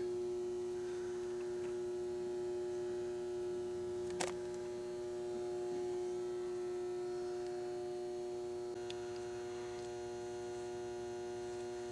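Steady electrical hum from a powered-up OOYA radial arm drill, one strong even tone with fainter overtones. A single short click comes about four seconds in.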